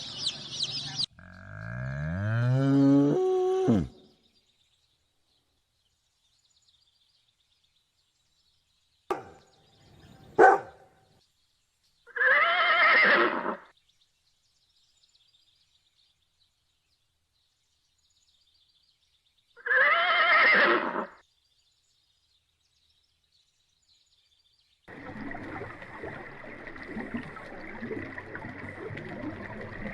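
A string of short animal sound effects: a rising, boing-like glide, a few sharp clicks, then two matching animal calls of about a second and a half each, some seven seconds apart. Steady noise follows near the end.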